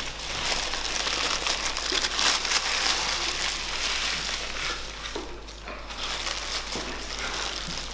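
Paper burger wrappers rustling and being crumpled, with crackly rustles throughout.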